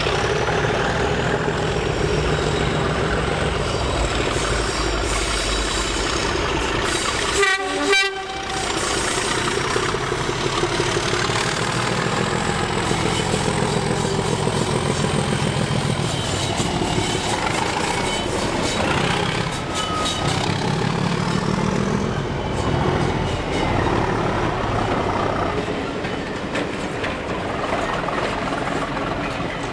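Two Class 37 diesel locomotives passing under power with their engines running loudly, and a short horn blast about seven and a half seconds in. Near the end the coaches roll by on the rails.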